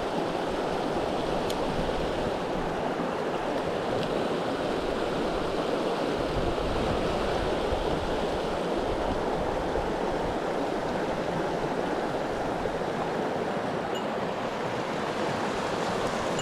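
Mountain stream water rushing steadily over rocks, a constant even rush.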